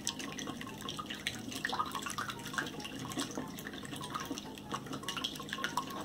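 A silicone whisk beating raw eggs and half-and-half in a glass bowl: wet slapping and sloshing of the liquid, with many small irregular clicks.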